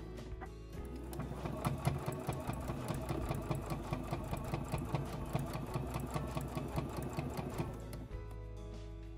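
Home sewing machine stitching a seam through cotton fabric, running in rapid, even stitches. It starts about a second in and stops near the end, with background music underneath.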